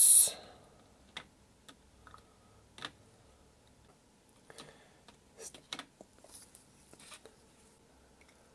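Scattered light clicks and taps of metal tweezers against a clear plastic window piece and a plastic bowl, as the part is lifted and turned in rinse water.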